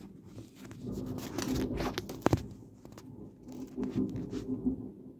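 Rustling and scraping handling noise on the camera's microphone, uneven and scratchy, with a sharp knock a little past two seconds in.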